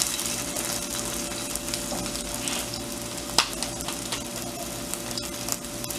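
A ground-meat patty sizzling steadily in hot oil in a grill pan, with light crackling and one sharp click about halfway through.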